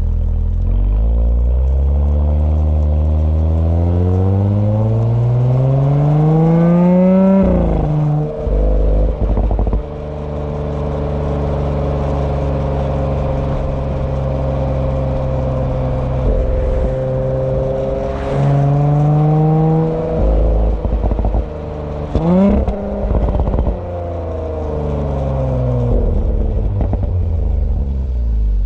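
Audi B9 S4's turbocharged 3.0-litre V6 and exhaust under hard acceleration, the pitch rising for about six seconds, then lifting off into a burst of exhaust pops and crackles. It cruises steadily, builds again and crackles a second time about two-thirds of the way through, then climbs once more and drops off near the end.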